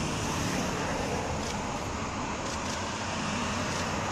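A procession of police cars driving slowly past one after another: steady engine and tyre noise.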